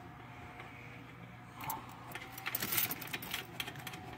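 Small metallic clinks and rattles from hands fitting a fuel pump assembly and its hold-down screws into the tank opening, starting about a second and a half in.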